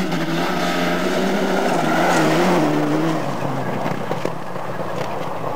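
Rally car at full throttle on a gravel stage, its engine note rising and falling as it approaches and passes, with a rush of tyres and flung gravel. The sound is loudest about two seconds in, then fades as the car goes away.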